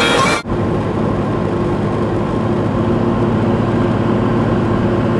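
Music cuts off abruptly about half a second in, giving way to the steady engine and road noise of a van driving, with a constant low hum.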